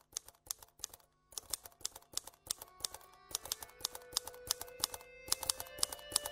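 Soundtrack of rapid, irregular clicks, with held musical notes coming in about two and a half seconds in and slowly growing louder beneath them.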